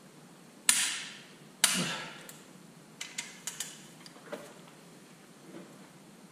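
Long torque wrench and socket working the cylinder head bolts of a Detroit Diesel 3-53T: two loud, sharp metal clacks about a second apart, then a few lighter ticks and clinks.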